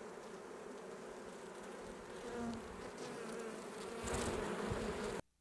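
Many honeybees buzzing at a hive entrance, a steady hum that grows a little louder near the end and then cuts off suddenly.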